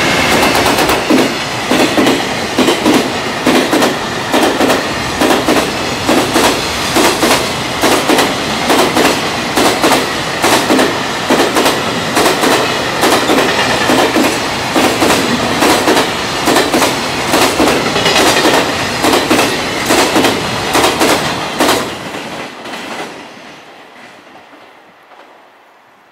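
Electric-hauled container freight train passing close by: its wheels clack over the rail joints in a steady, rapid rhythm, with a high steady ring through the first half. The clatter fades away about 22 seconds in as the last wagon passes.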